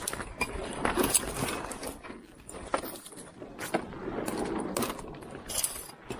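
Irregular rustling with scattered sharp clicks and knocks: a person moving about and handling fishing gear.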